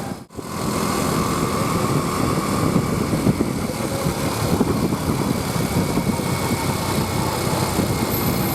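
Vehicle engine running steadily with road noise, with a brief drop-out just after the start where the recording cuts.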